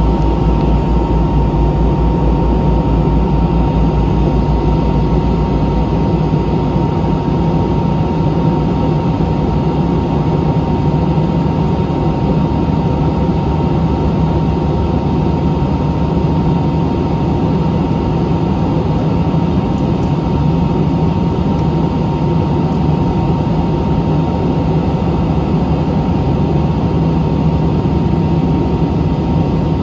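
Airliner cabin noise: a loud, steady drone of engines and rushing air with a constant thin high tone running through it. A low throb underneath evens out about six seconds in.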